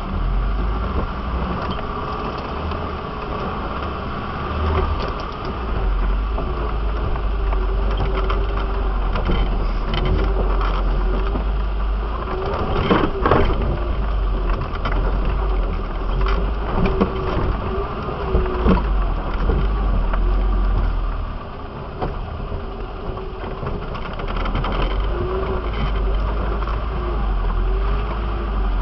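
Off-road 4x4's engine running steadily at low speed as the vehicle crawls over a rough forest trail, with a heavy low rumble and knocks and rattles from the body over bumps; the loudest knock comes about halfway through, another a few seconds later.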